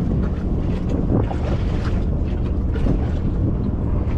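Wind buffeting the microphone over a steady low drone.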